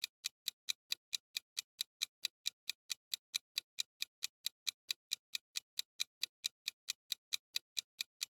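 Quiz countdown-timer sound effect: clock-style ticking, steady at about four ticks a second.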